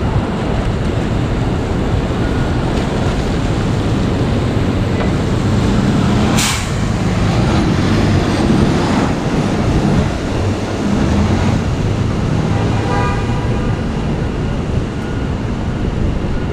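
Busy city street traffic: vehicles running past on wet road, with a short sharp hiss about six seconds in and a pitched tone sounding near the end.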